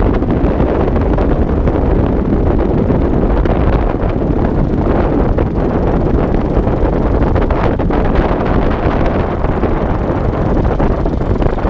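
Loud, steady wind noise buffeting the microphone of a camera on a moving motorcycle, with the motorcycle running underneath.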